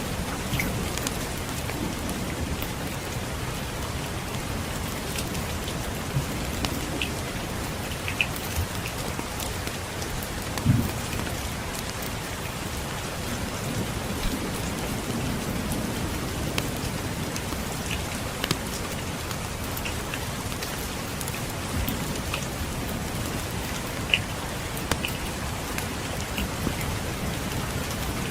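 Steady rain with a low rumble of distant thunder underneath, and scattered sharp crackles from a wood fire in a fireplace; one low thump about ten seconds in.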